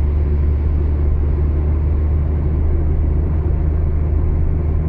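Steady low rumble of a car driving at speed on a multi-lane highway, with tyre and road noise.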